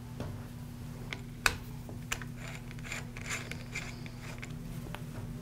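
Soft clicks, taps and light scraping of plastic and metal parts as a screw is turned into the trimmer's handle clamp with an L-shaped Torx key, with one sharper click about one and a half seconds in.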